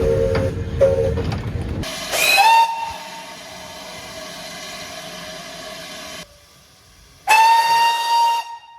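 Steam locomotive whistles from separate clips cut together. First a lower, chord-like blast sounds twice in the first second or so. Then two loud, shrill whistle blasts, each swooping up in pitch as it opens, come about two seconds in and again near the end, the first trailing off into quieter steam hiss.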